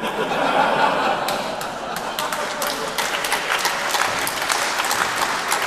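Audience laughing, giving way to applause from about a second in, with many hand claps that carry on steadily.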